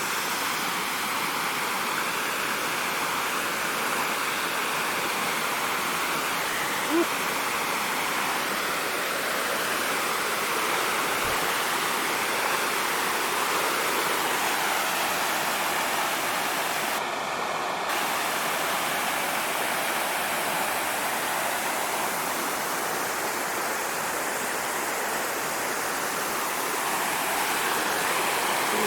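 Waterfall heard up close: a steady, even rush of falling water.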